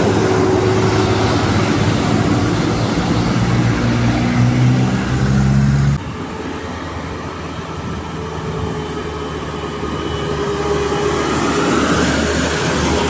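Bus telolet horn, a multi-tone air horn, sounding a run of held notes that step in pitch. It cuts off suddenly about halfway through, and quieter vehicle noise then builds toward the end.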